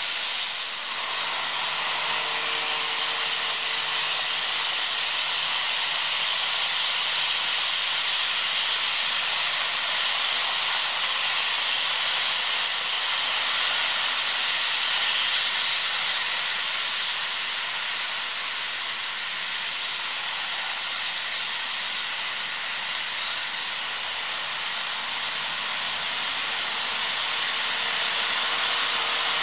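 HO-scale model freight trains rolling past on track, a steady hiss of many small wheels running on the rails with the locomotives' motors.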